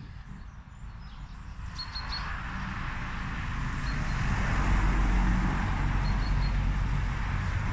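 Road traffic passing, a rushing noise with a low rumble that builds from about two seconds in and is loudest around the middle, with a few faint bird chirps over it.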